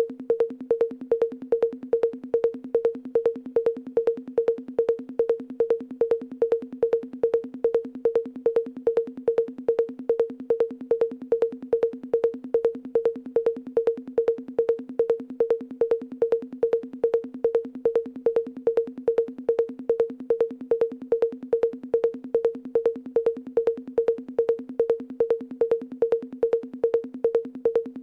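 Looped electronic drum-machine percussion: a short pitched hit repeating evenly, about two and a half times a second, with fast faint ticks between the hits.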